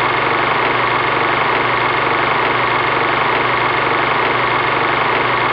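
Loud, steady electronic buzzing static that starts suddenly and cuts off abruptly after about five and a half seconds; it sounds like an edited-in glitch or transition effect.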